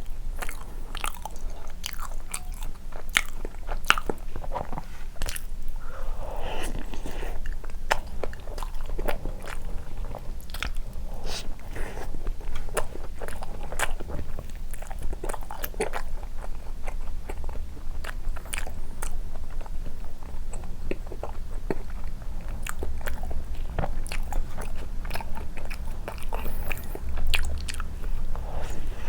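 Close-miked eating of soft condensed-milk cream bread: biting and chewing with many small, sharp mouth clicks.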